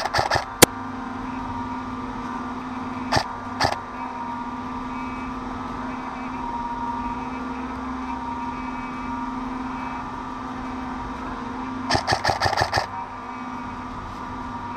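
Airsoft M4 electric gun (AEG) firing: a few quick shots in the first second, two single shots a little after three seconds in, and a fast full-auto burst of about eight shots near the end. A steady hum runs underneath.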